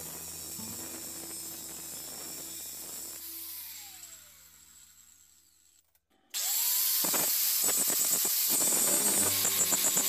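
Handheld angle grinder grinding a steel bar: it runs against the metal for about three seconds, then winds down with a falling whine. After a short pause it is switched on again about six seconds in, its whine rising as it spins up, and grinds the steel loudly.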